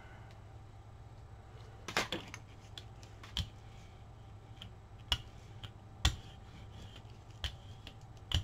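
Scattered light clicks and taps of paint supplies being handled on a work table, about half a dozen, over a steady low hum.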